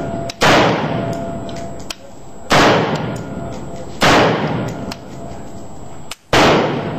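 Four unsuppressed rifle shots from a 10.5-inch-barrel Lewis Machine & Tool AR-15 in 5.56×45, spaced about one and a half to two seconds apart. Each sharp crack is followed by a long echoing tail.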